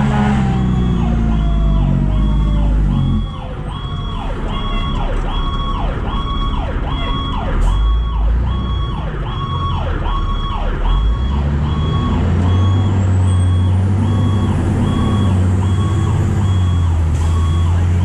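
Fire truck siren on a fast yelp, rising and falling about twice a second, heard from inside the cab over the truck's diesel engine. A slower falling siren tone fades out in the first few seconds. The engine drops back about three seconds in and pulls harder again after about twelve seconds.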